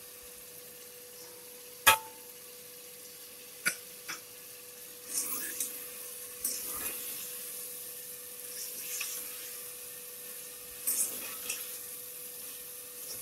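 Chicken frying with a light sizzle in an aluminium pot while a metal spoon stirs and scrapes it, as spices are mixed in. A sharp metal clink about two seconds in is the loudest sound, followed by two smaller knocks; a faint steady hum runs underneath.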